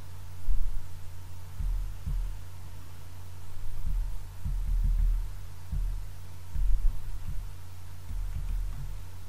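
Steady low hum with irregular dull low thumps and rumbles, the strongest about half a second in and again about seven seconds in.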